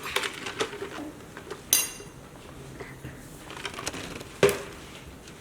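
Spoon and dishes clinking and knocking on a table: light scattered clicks, a ringing metallic clink about two seconds in, and a sharper knock near the end.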